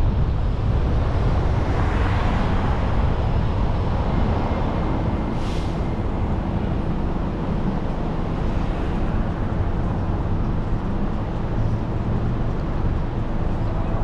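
Car driving on a city street: a steady rumble of engine and tyre noise with surrounding traffic. A brief hiss comes about five and a half seconds in.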